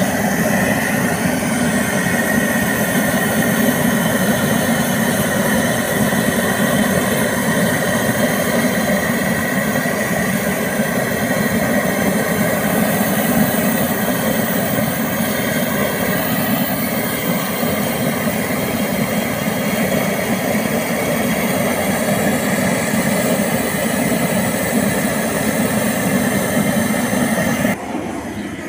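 Bottled-gas torch burning steadily as it singes the bristles off a slaughtered pig's hide. The sound drops abruptly about a second before the end.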